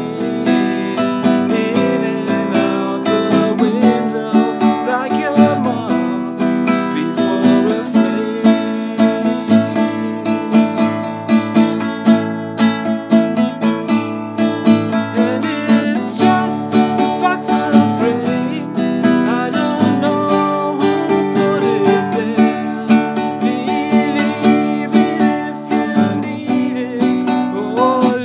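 Nylon-string classical guitar strummed in a steady rhythm, with a man singing along over it in parts.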